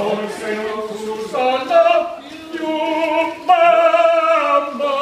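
A man singing a cappella in a full voice, in sung phrases with long wavering held notes, the longest near the end; at least one other voice joins in.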